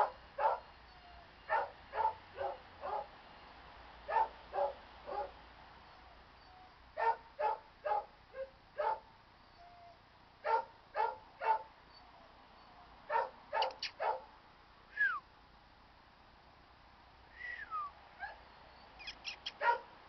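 Small dog barking in short yaps, in quick runs of two to five every couple of seconds, with a few brief high calls falling in pitch in the later part.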